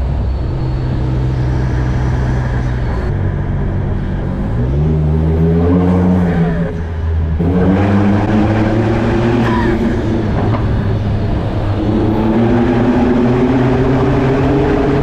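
Ford Transit van's swapped-in Raptor 3.5-litre twin-turbo EcoBoost V6 pulling up through the gears. The engine note climbs, drops at a shift about seven seconds in, and climbs again. It eases off around ten seconds and climbs once more near the end.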